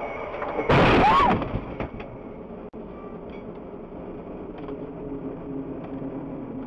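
Steady engine and road noise inside a moving car, broken about a second in by a loud, sudden burst lasting under a second with a short sliding tone in it. A brief dropout follows, then the steady driving noise goes on.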